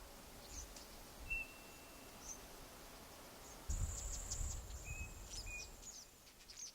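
Faint high-pitched bird calls: scattered short chirps, a thin whistled note about a second in, and a longer high buzzy trill from about four seconds in, over a low rumble.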